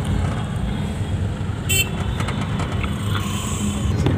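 Steady road and engine rumble inside a moving car in city traffic, with a short horn toot about a second and a half in.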